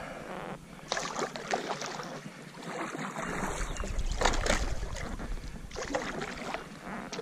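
Kayak paddle strokes dipping and splashing in the water, a few separate strokes, the loudest about halfway through.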